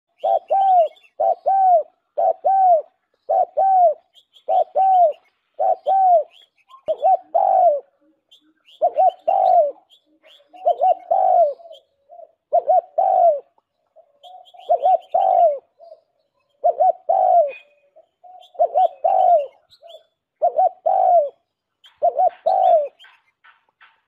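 Pigeon cooing over and over: short arched coos in pairs and small clusters, about one cluster a second, with faint higher chirps in the background.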